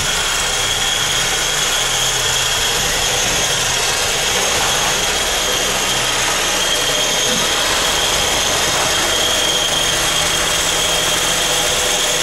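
Electric winch on the front of a Lada Niva whining steadily as it winds in its line and drags a Volkswagen Touareg out of the mud, with the vehicles' engines running low underneath.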